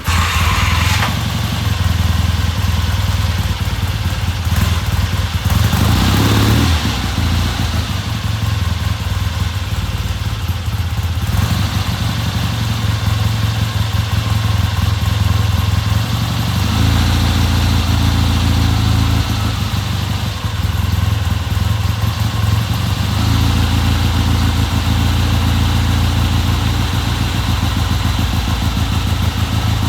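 1970 Triumph motorcycle engine running on its newly fitted carburettor, its note shifting a few times. The engine is running after a new carburettor was fitted to cure hard starting.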